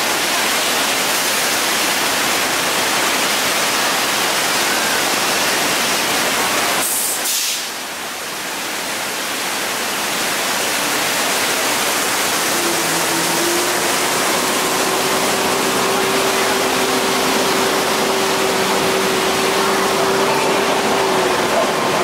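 Flood effect of a theme-park earthquake set: a great rush of water pouring and spraying, a steady loud roar that briefly eases about seven seconds in. About halfway through a steady hum joins it.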